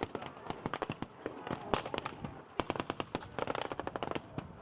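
Blank small-arms gunfire from a battle reenactment: scattered rifle shots with a quick machine-gun burst about two and a half seconds in.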